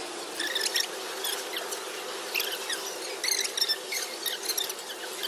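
Paper taco wrappers and a paper takeout bag crinkling and rustling in short, irregular bursts as they are handled and unwrapped, over a steady low hum.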